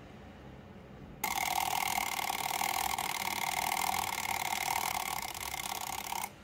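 Mechanical wind-up alarm clock's alarm going off: a loud, rapid, continuous ringing that starts suddenly about a second in and stops abruptly about five seconds later.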